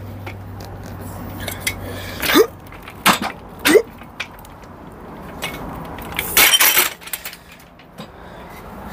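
Metal hand truck clanking and rattling as a heavy carved log is stood upright off it: several sharp knocks and clinks, two of them with a short rising squeak, and a longer, louder rattle about six and a half seconds in.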